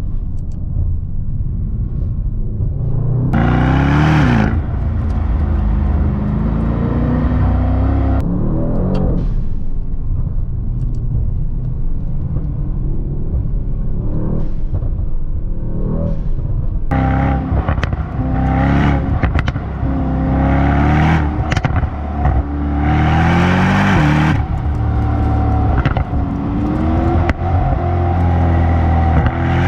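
Brabus Rocket 900's twin-turbo V8 with its Brabus performance exhaust, the car accelerating hard: the revs climb and drop again and again as it pulls through the gears, loudest about three to four seconds in and through the second half.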